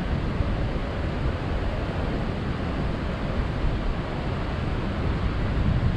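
Strong wind buffeting the microphone: a steady rush of noise with a heavy low rumble and no break.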